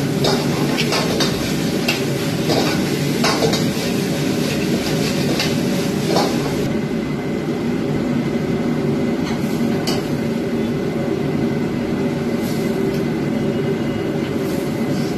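Steady noise of a commercial gas wok burner and kitchen exhaust hood, with a metal ladle or spatula clanking against the steel wok several times in the first six seconds.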